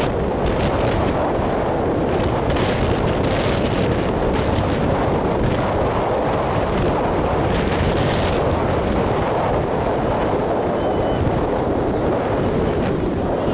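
Wind buffeting the camera microphone: a loud, steady rush of noise that covers everything else.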